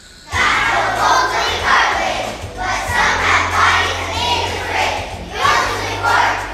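A large group of young children singing loudly together over a recorded backing track with a steady bass line, starting abruptly about a third of a second in.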